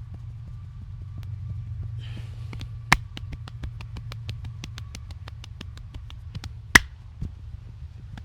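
Rapid sharp clicks and snaps from a masseur's hands during a head massage, about five a second, with two much louder cracks about four seconds apart, over a steady low hum.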